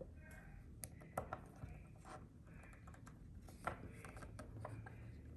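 Light handling of small parts: scattered faint clicks and a little rustling.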